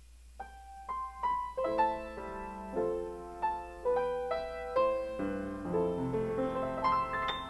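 Solo piano playing a slow prelude. It starts with a few single notes about half a second in, then moves into fuller chords. A faint steady low hum sits beneath it.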